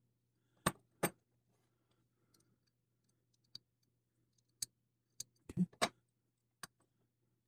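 Small metal folding-knife parts clicking and tapping as they are handled and set in place: about eight sharp, irregular clicks, with a quick cluster of them about two-thirds of the way through.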